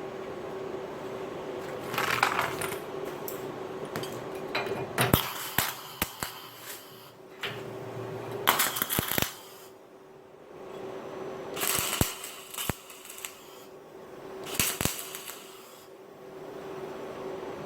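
Steel parts clinking and clanking as they are handled and set down: a string of separate sharp metal knocks with short ringing, grouped in clusters a few seconds apart, over a steady faint hum.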